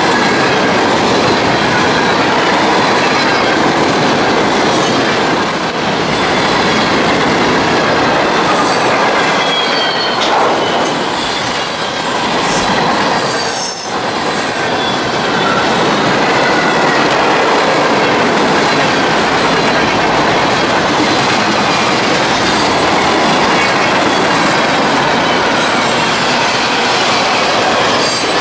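CSX freight train cars rolling steadily past at close range: a continuous rush of steel wheels on rail, with clickety-clack over the rail joints and faint, shifting wheel squeal.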